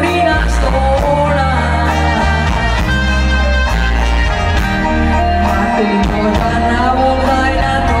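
Live band music: a woman singing into a microphone over electric guitar and drums, with a steady beat.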